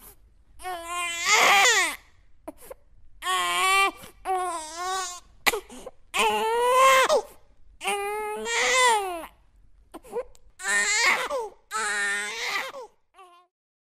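Newborn baby crying: about eight cries, each roughly a second long with a wavering pitch that falls at the end, separated by short pauses, trailing off faintly near the end.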